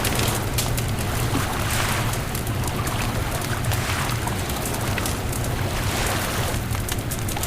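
Beach bonfire crackling, with many quick sharp pops and snaps, over a steady low rumble of wind and surf.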